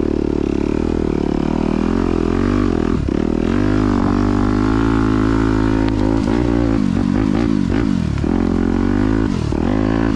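Yamaha YZ250F's 250cc four-stroke single-cylinder engine running hard on a motocross track, steady for the first few seconds, then rising and falling in pitch again and again as the throttle is opened and shut through the second half.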